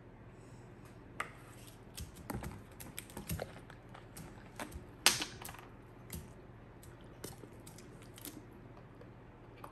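A person drinking tea: scattered small clicks and knocks, the sharpest about five seconds in.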